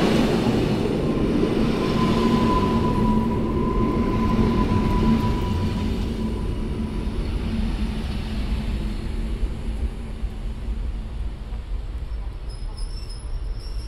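Koleje Mazowieckie EN57AKM electric multiple unit rolling past along the platform and away, its wheels rumbling on the rails and slowly fading. A steady whine comes in about a second in and dies away after a few seconds.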